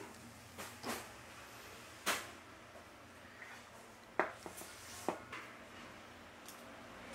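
Tableware clinking: metal chopsticks and a stainless steel bowl giving four or five sharp, short knocks spread over several seconds, over quiet restaurant room tone.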